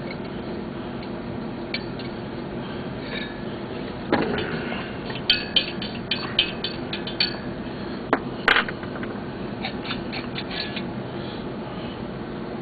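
Sharp clicks and clinks of small metal hardware and hand tools being handled, a quick run of them in the middle and a few more near the end, over a steady background hum.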